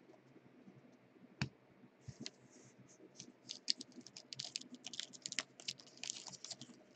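Foil wrapper of a trading-card pack being crinkled and torn open by hand: a single sharp click about a second and a half in, then a run of quick crackling crinkles.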